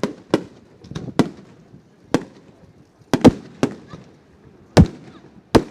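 Fireworks display: aerial shells bursting in an irregular string of about ten sharp bangs, each trailing a short echo, the loudest ones just past the middle.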